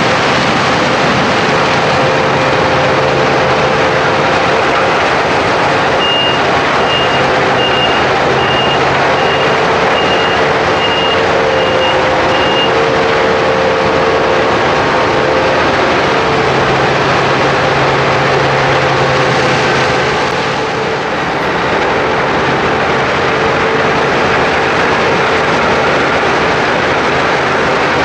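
Claas Lexion 770 combine harvester running loud and steady with its Geringhoff nine-row corn header, with a steady mechanical hum. About six seconds in, a reversing alarm sounds a row of even beeps for about seven seconds.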